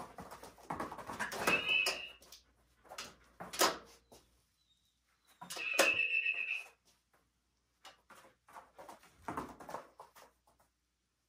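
German Shepherd vocalizing on a "tell me" speak cue: several short separate sounds with gaps between them, the loudest a held high-pitched whine about six seconds in.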